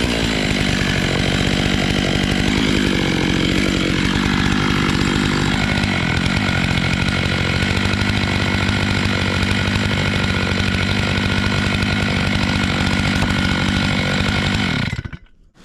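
Stihl MS 881 two-stroke chainsaw on a 36-inch bar in an Alaskan chainsaw mill, running steadily at high revs while milling through a black walnut round. It cuts off suddenly about fifteen seconds in.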